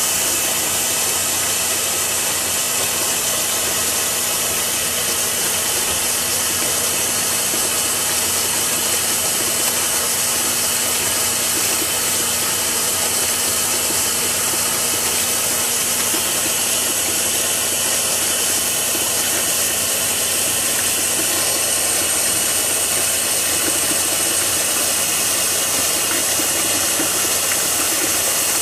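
Steady hiss with a faint hum underneath, unchanging throughout.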